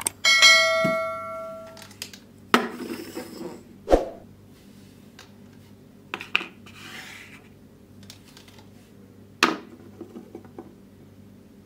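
A bright ringing chime sounds about a third of a second in and dies away over a second and a half. Then hard plastic toy moulds and tools are set down on a wooden tabletop: four sharp clacks spread over the next seven seconds, with a few light taps near the end.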